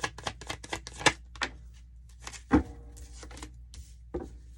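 Tarot cards being shuffled and handled: a quick run of flicking clicks in the first second and a half, then a few separate knocks, the loudest about two and a half seconds in.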